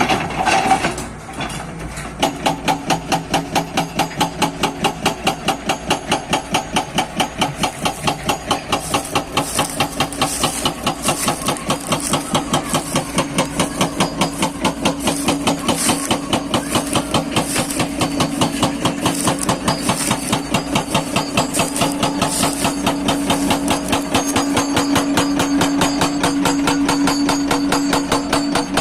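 Hydraulic breaker on a Hyundai 210 excavator hammering with rapid, evenly spaced blows, the excavator's engine running under it. The hammering starts about two seconds in, and the engine note grows stronger toward the end.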